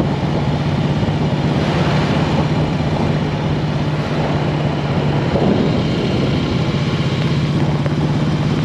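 Motorcycle engine running at a steady speed while riding, its drone mixed with wind and road noise.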